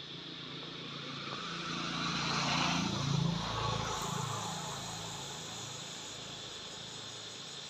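A motor vehicle passing on the road, its engine sound rising to a peak about three seconds in and fading away, over a steady high buzz of insects.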